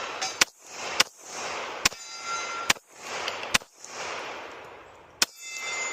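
Five .45 ACP shots from a Glock 21 pistol, fired about a second apart with a longer pause before the last, each followed by a short fading echo.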